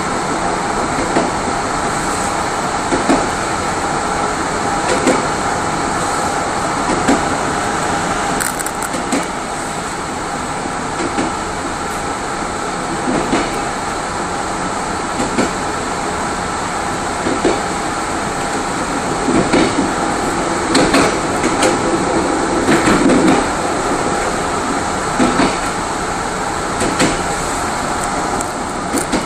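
Rear passenger coach of a locomotive-hauled Mugunghwa train running on jointed track, heard from inside the coach: a steady running rumble and hum, with a sharp wheel clack over a rail joint about every two seconds, and a quicker run of clacks around two-thirds of the way through.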